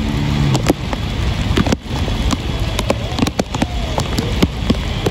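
Heavy rain pouring down, with many drops striking close by as sharp taps over a low rumble. A steady low tone cuts off about half a second in.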